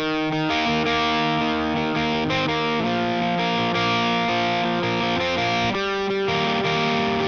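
Background music: distorted electric guitar chords with an effects-laden sound, starting abruptly.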